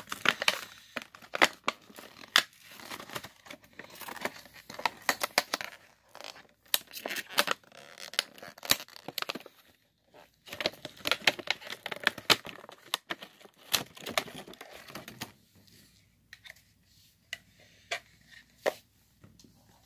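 Crinkling and tearing of packaging being handled in quick bursts, thinning out to a few scattered clicks for the last few seconds.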